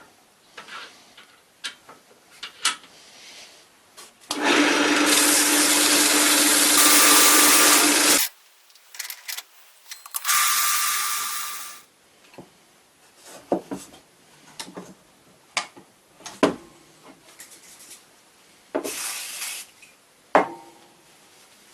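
Power tool working wood runs loudly for about four seconds and stops abruptly, then runs again for under two seconds and dies away. Scattered knocks and clatter of handled wooden parts come before and after.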